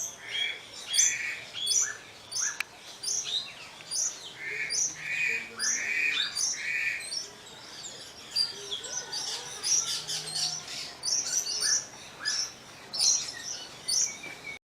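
Several small birds chirping and calling, short high notes overlapping throughout, with a run of four buzzy repeated notes about halfway through.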